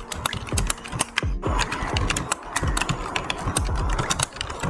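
Typing on a Logitech K375s wireless keyboard: a fast, continuous run of key clicks, several strokes a second.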